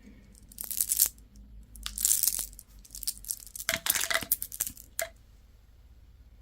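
Candy wrapper being crinkled and torn open by hand, in four short crackling bursts, the last a brief one about five seconds in.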